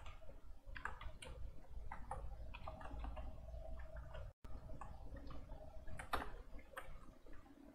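Faint computer keyboard typing: irregular light key clicks over a low steady hum.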